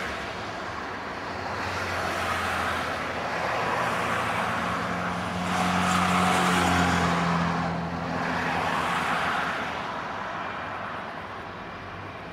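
Boeing 757's twin Rolls-Royce RB211 turbofan engines running as the airliner rolls along the runway: a steady rushing jet noise over a low hum, swelling and easing, loudest about six seconds in.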